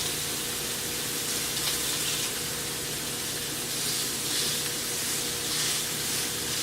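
Sausage frying in a pan: a steady sizzle that swells and eases a few times.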